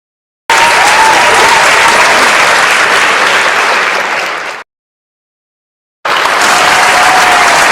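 Crowd applause with cheering, dense and loud. It starts abruptly about half a second in and cuts off suddenly about four and a half seconds in. After a second and a half of silence it starts again abruptly.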